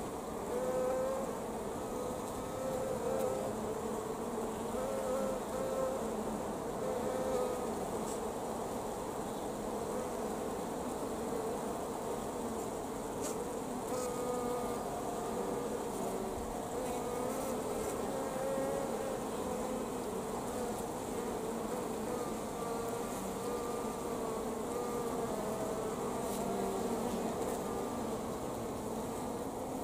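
Many honeybees buzzing on a comb of brood and pollen, a steady hum with single bees' pitches wavering up and down over it.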